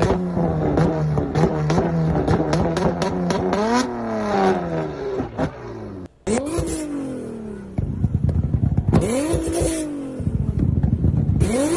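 Modified small import car's engine revving up and down, its exhaust popping and crackling as each rev falls. About six seconds in, a cut to another car revving, with bursts of loud crackling from its exhaust.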